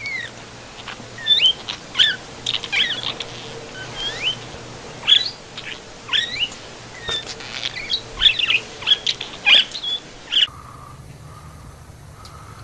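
Budgerigar chirping: a quick string of short calls that slide up and down in pitch, about two a second, stopping about ten and a half seconds in.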